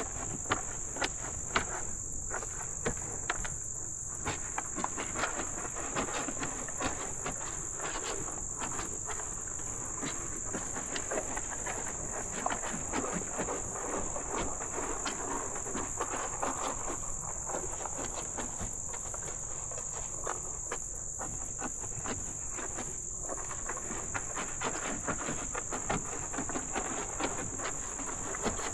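Steady high-pitched drone of an insect chorus, with many irregular close clicks and crunches over it.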